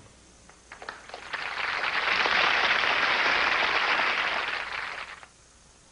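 Sitcom studio audience applauding: a few scattered claps about a second in swell into full applause, which dies away after about five seconds.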